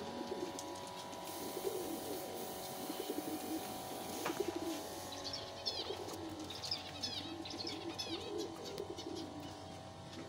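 Fantail pigeons cooing, a low rolling coo repeated over and over. From about five seconds in, quick high chirps of a small bird run over it for a few seconds.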